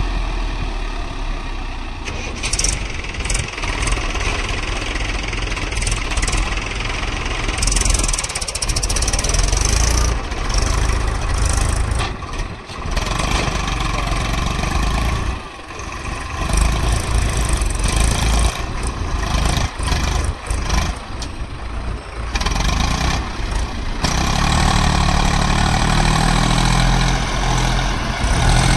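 Diesel engines of a backhoe loader and a Swaraj three-cylinder tractor running together. From about 24 s in, the tractor engine runs louder and steadier as it pulls a trolley loaded with earth.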